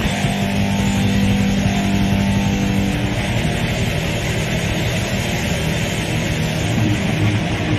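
Black death metal from a raw demo recording: distorted guitars, bass and drums in a dense, noisy wall of sound, with a low note held for about the first three seconds.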